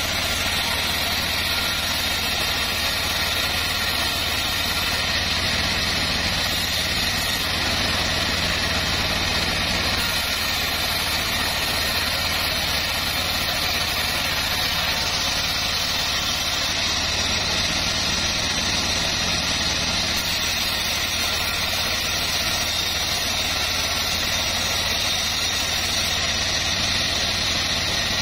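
Homemade band sawmill running steadily while its blade rips a log slab lengthwise into battens: a constant low hum with an even hiss of cutting over it.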